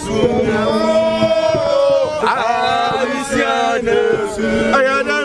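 Men's voices singing a chant together, held notes with pitch sliding between them.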